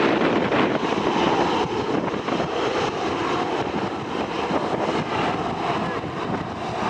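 Aircraft engine noise mixed with strong wind buffeting the microphone: a steady, dense rush.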